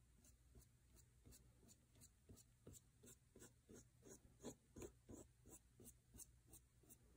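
Faint rubbing of a fingertip dabbing and dragging paint across paper, in quick even strokes about three a second.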